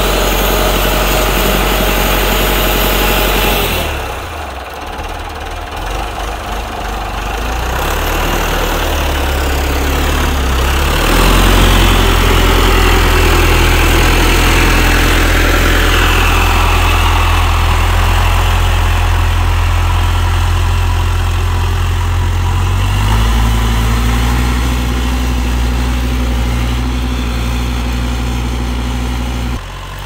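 Perkins diesel engine of an old Massey Ferguson MF50E backhoe running steadily. It goes quieter about four seconds in, gets louder from about eleven seconds, and rises slightly in pitch around twenty-three seconds.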